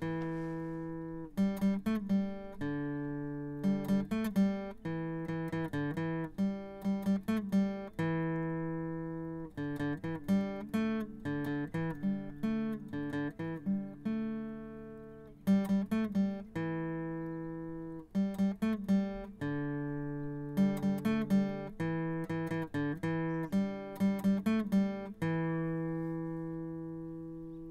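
Acoustic guitar music: runs of quick plucked notes alternating with chords left to ring out, ending on a long fading chord.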